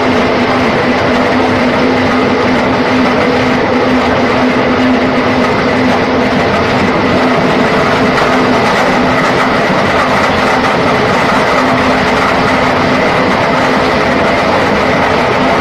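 Horizontal concrete pipe-making machine running, its steel pipe mould turning on the shaft: a loud, steady mechanical running noise with a constant hum that doesn't change.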